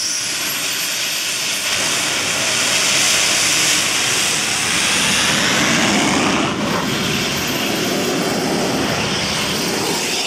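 Rolls-Royce helicopter gas turbine fitted to a quad bike running at high power: a loud jet-like noise with a steady high whine on top. The noise swells about two seconds in and drops sharply a little past halfway as the quad launches down the strip.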